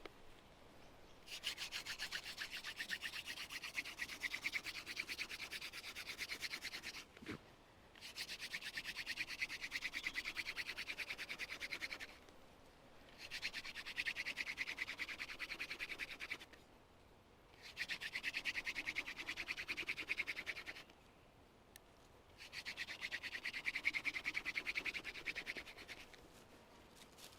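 Hand drill friction fire: a grass-tree (Xanthorrhoea) spindle is spun between the palms and grinds in the notch of a silver wattle baseboard. The rapid rubbing comes in five bouts of several seconds each, with short pauses between them.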